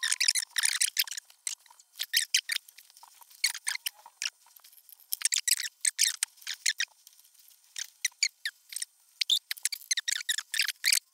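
Irregular short scratches, clicks and rustles of hand work, quieter for a moment about seven seconds in: power cables and a flexible measuring tape handled inside a PC case, and a pen writing on paper.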